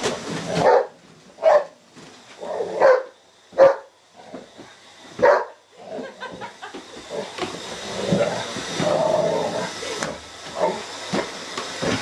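Dogue de Bordeaux barking about five times, single barks a second or so apart. From about halfway a vacuum cleaner runs with a steady hissing drone, with a couple more barks over it near the end.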